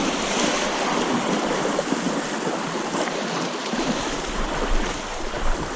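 Rushing water of a creek running high after heavy rain: a steady, even hiss of moving current.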